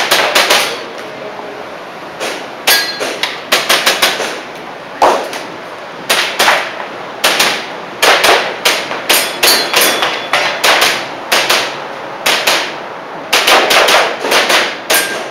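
Airsoft pistol shots, each a sharp crack, fired in quick pairs and short strings with brief pauses between the groups.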